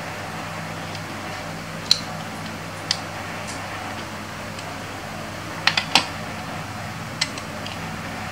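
Plastic LEGO bricks clicking as they are handled, pressed together and set down on a table. There are single sharp clicks about two and three seconds in, a quick run of three around six seconds, and one more a second later, over a steady background hiss.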